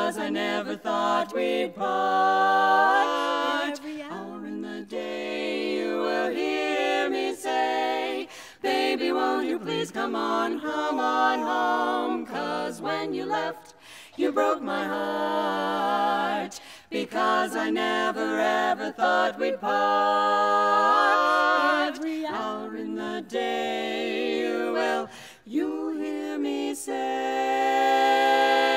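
Women's barbershop quartet singing a cappella in close four-part harmony, in phrases broken by short gaps, with a chord held steadily near the end.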